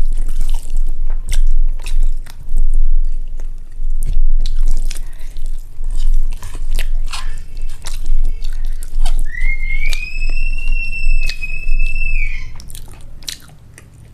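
Close-miked chewing of rice and egg curry: wet smacking and mouth clicks. From about nine seconds in, a high whistle-like tone rises briefly, then holds steady for about three seconds. The chewing fades near the end.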